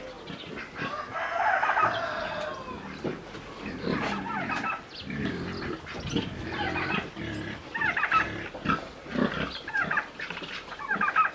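Pigs and chickens calling together on a farm: a busy, overlapping run of short calls, higher and lower ones mixed.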